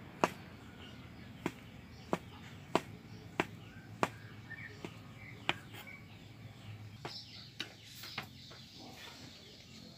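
Kitchen knife slicing sausage on a plastic cutting board, a sharp tap of the blade on the board with each cut, roughly one every two-thirds of a second, spacing out over the second half.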